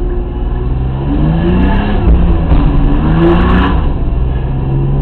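BMW E30's M50B20 2.0-litre straight-six engine heard from inside the cabin, running under light throttle and rising in pitch twice as the car accelerates, then easing back.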